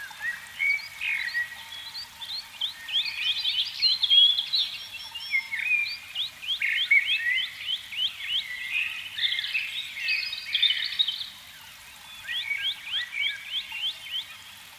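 A chorus of frogs calling: many overlapping trains of short, high chirping notes, with a brief lull about three-quarters of the way through.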